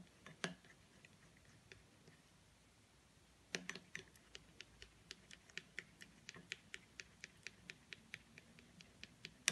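Faint clicking of a spoon against a small glass bowl while stirring citric acid to dissolve it. A couple of clicks come at first, and from about three and a half seconds in there is a steady run of about three clicks a second.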